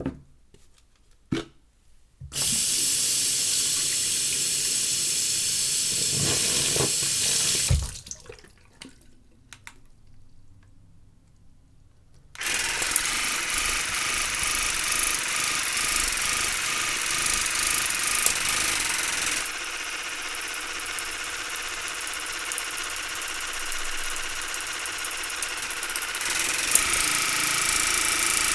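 MySmile LP221 water flosser running: its pump drives a steady hissing water jet. Two clicks come first, then the jet runs for about five seconds, stops for about four seconds, and starts again, running on with a faint whine and shifting slightly in level twice.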